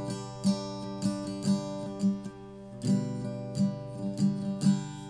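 Background music: an acoustic guitar strumming chords, about two strums a second, each chord left ringing.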